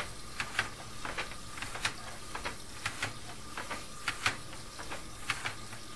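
Irregular clicks and ticks from a sewer inspection camera's push cable and reel as the camera is fed down the line, over a steady hiss and a faint steady electrical whine.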